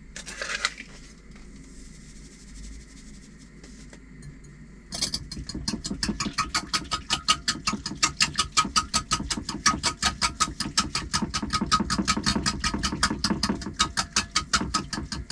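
A tub of Smash instant mashed potato shaken over a bowl, the dry granules rattling out in a fast, even rhythm of about six shakes a second, starting about five seconds in.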